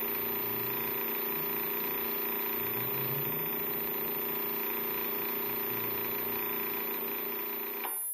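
A dense electronic drone of many steady tones held together, played through small vibration speakers set under shallow dishes of water. A low wavering layer runs beneath it. The whole chord cuts off suddenly just before the end.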